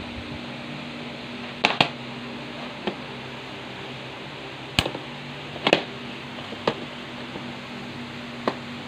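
Plastic DVD case being handled on a wooden table: a scattering of sharp clicks and knocks, a quick double click among them, over a steady low hum.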